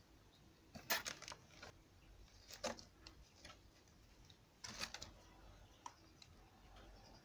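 Glossy paper flyers crinkling and rustling in a cardboard box under a kitten's paws, in a few short crackly bursts.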